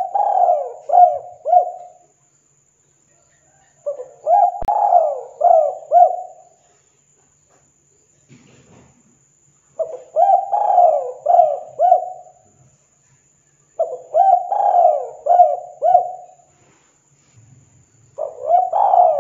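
Spotted dove cooing: five phrases of about four rolling coos each, with short pauses between phrases.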